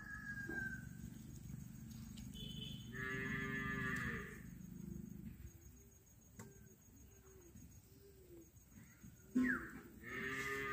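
A cow mooing: one long call about three seconds in and another starting near the end, with a few sharp knocks in between.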